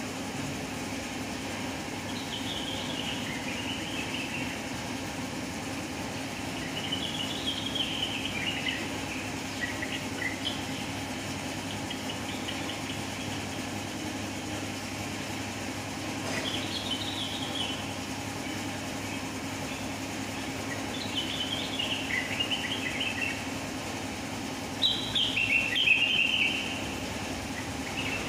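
Cucak wilis (trengganis) songbird singing in short bursts of quick, chattering high notes, five phrases several seconds apart, the last the loudest. A steady low mechanical hum runs underneath.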